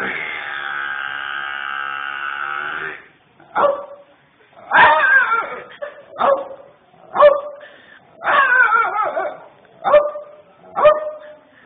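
A dog vocalising: one long held howl-like call, then a run of short yelps and barks about once a second, with two longer wavering howls among them.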